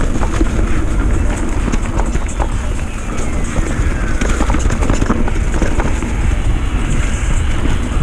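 Mountain bike descending fast on a dirt trail covered in dry leaves: steady wind buffeting the camera microphone and tyre rumble, with many quick rattling clicks from the bike over the rough ground.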